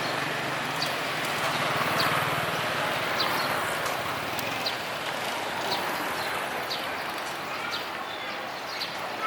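Open-air market ambience: a steady hubbub of background noise and indistinct voices, with light footsteps about once a second. A small engine idling fades out in the first second or so.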